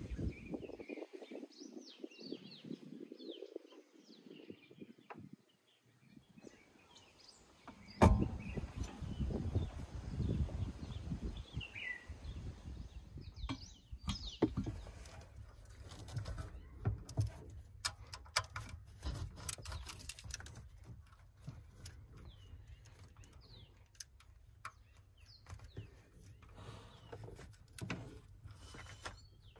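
Scattered metallic clicks and knocks of hand tools on a stripped-down jet-ski engine, with one loud knock about eight seconds in. Birds chirp in the background.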